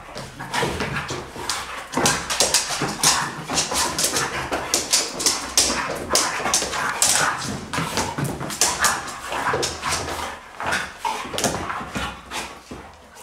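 Two dogs, a Hungarian Vizsla and a spotted pointer, play-fighting: a quick, dense run of yips, whimpers and short barks that eases off near the end.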